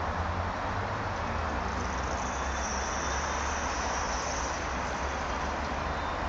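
Steady outdoor background noise with a constant low rumble, like distant town traffic, and a faint high whine partway through.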